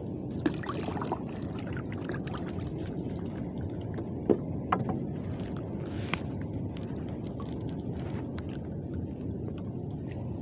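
Steady low rumble of a small fishing boat at sea, with a few sharp clicks and knocks, the loudest a little before the middle.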